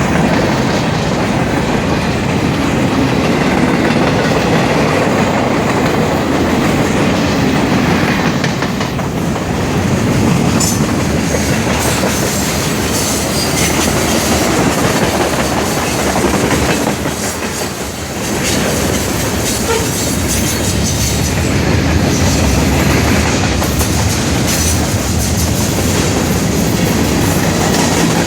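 Freight cars of a long, fast-moving Norfolk Southern manifest train rolling past: steel wheels on the rails making a steady, loud din that dips briefly about two-thirds of the way through.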